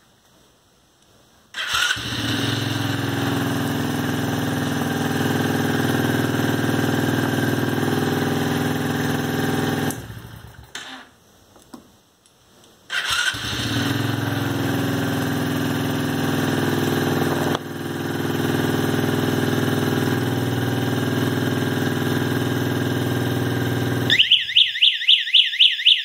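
Small Chinese kids' ATV engine started by jumping the starter solenoid, catching at once and idling steadily, then cutting off abruptly; it is started again a few seconds later and idles until, near the end, a rapid warbling alarm chirp from the remote-control receiver takes over.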